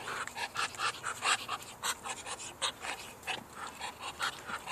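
A duck hissing in quick short breathy puffs, several a second: an aggressive threat hiss from a duck that hisses instead of quacking.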